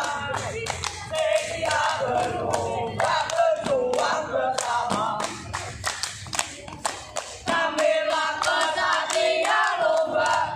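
A group of boys chanting loudly in unison, with sharp hand claps in time with the chant.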